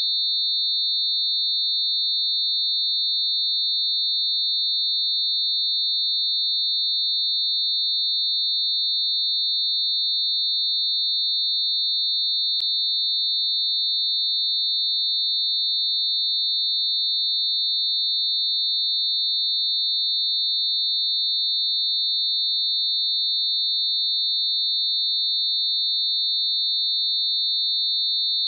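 Synthesized high-pitched mixed tone: a few pure sine tones clustered around 4,000 Hz, held perfectly steady. A faint click about halfway through.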